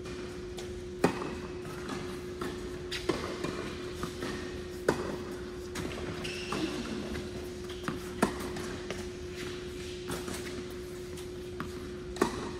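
Tennis rally on an indoor court: rackets strike the ball every two to four seconds with sharp pops, quieter ball bounces between, echoing in the hall over a steady low hum.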